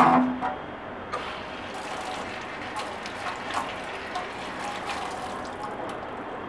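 Metal spatula clattering against a pan in a stainless steel sink, then tap water running steadily into the sink from about two seconds in, with light knocks and clicks as the pan is scrubbed under it.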